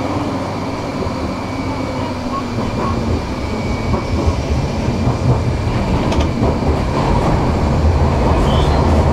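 Tram running along the rails, with a continuous rumble of wheels and track that grows louder and deeper in the second half. There are a few faint clicks a little after six seconds in.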